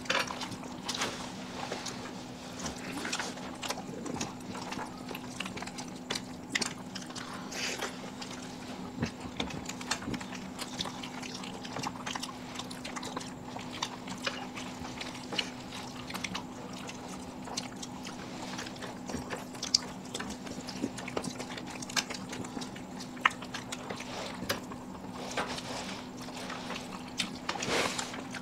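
Several people eating rice and curry by hand: chewing, and food being mixed and scooped on plates, with many short clicks and taps scattered throughout. A steady low hum runs underneath.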